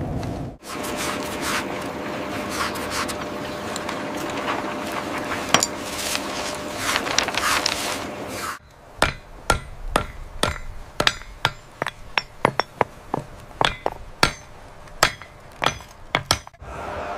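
A steady scratchy, rustling noise, which gives way about eight seconds in to hammers striking anvils: sharp, uneven blows, about two or three a second.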